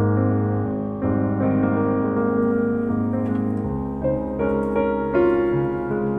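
Background instrumental piano music, with held notes that change every second or so.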